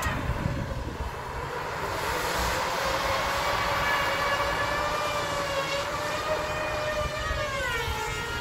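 Tires of a vehicle stuck in deep snow spinning under power, a high steady whine that sags and falls away near the end.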